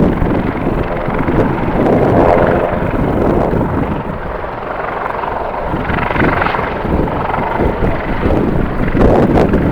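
Jet airliner engine noise mixed with strong wind buffeting the microphone, in uneven surges.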